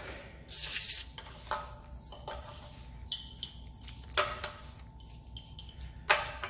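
Aerosol spray hissing briefly about half a second in, as a spray-on fluid goes onto old sticky grease on an outboard motor's lower housing to loosen it. A few short rubbing and knocking sounds of handling follow.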